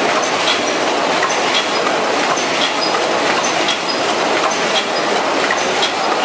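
High-speed paper cup forming machine (ZSBJ-100) running: a loud, steady mechanical clatter with a sharp clack about twice a second as it cycles.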